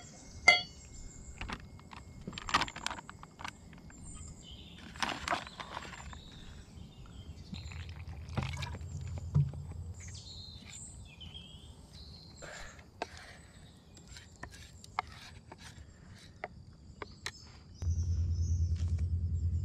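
A metal spoon clinking and scraping in a small steel cup as flour batter for roti is mixed by hand, with scattered clicks and knocks as things are picked up and set down on the rock. Birds chirp faintly now and then, and a low rumble comes in near the end.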